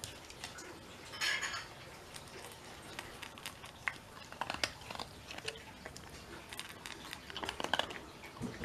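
A Shiba Inu eating dry kibble from a stainless steel bowl: scattered crunches and clinks of kibble against the metal bowl, denser near the end.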